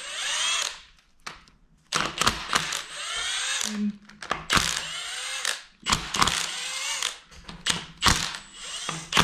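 A power tool running in short repeated bursts, its whine rising and falling in pitch as it spins, while bolts are backed out during an engine teardown.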